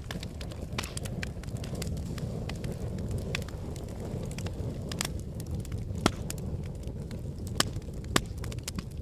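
Wood fire burning in a fireplace: a steady low rush of flame under irregular sharp crackles and pops. The loudest pop comes about six seconds in, with two more close together near the end.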